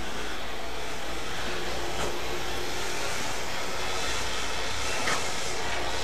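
Steady rushing noise, even from low to high pitch, with faint ticks about two seconds and five seconds in.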